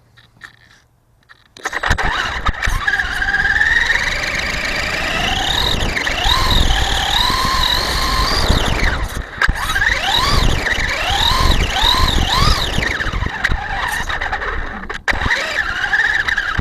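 Electric motor and drivetrain of a Traxxas Stampede RC monster truck whining as it drives, the pitch rising and falling again and again as it speeds up and slows down, over a steady rushing noise of the running truck. The sound starts about two seconds in.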